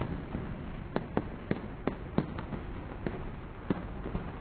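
Aerial fireworks bursting: about nine sharp bangs and cracks at uneven intervals, over a steady low background noise.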